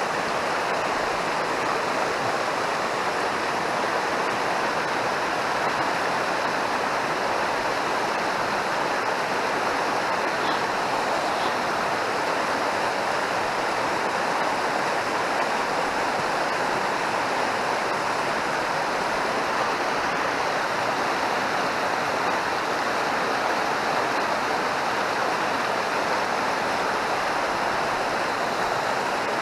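Mountain river rushing steadily.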